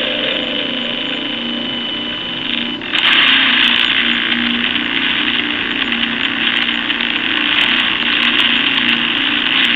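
Spirit box app sweeping through radio static: a steady hiss of white noise with a faint low hum underneath, dipping briefly and then getting louder about three seconds in.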